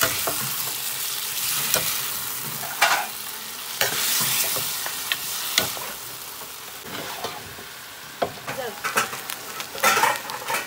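Mutton pieces in yogurt sizzling in a hot pan while being stirred with a spoon, with the spoon scraping and knocking against the pan now and then. The sizzle fades gradually, and near the end a quick run of clicks and knocks sounds.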